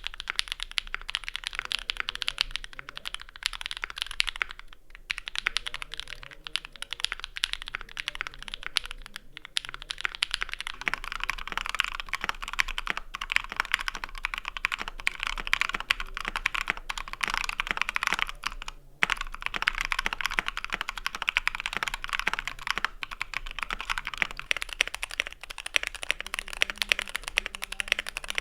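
Fast, continuous typing on computer keyboards, a dense run of key clicks that breaks off briefly about 5 and 19 seconds in.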